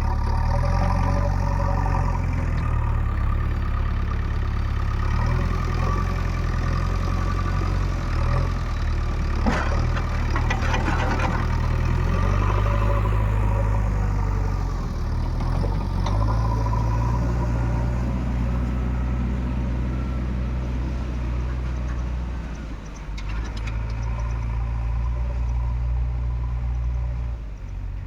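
Diesel engine of a JCB 3DX backhoe loader running steadily while it works, with a stretch of clattering about ten seconds in and brief drops in the engine note near the end.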